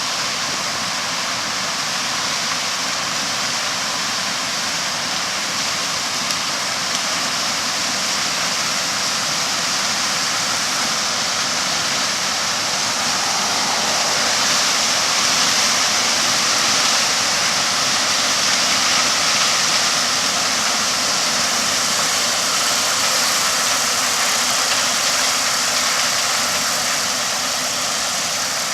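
A John Deere combine harvester running as it works through standing corn, its engine and threshing machinery making a steady, loud noise that grows a little louder a little past the middle and then eases.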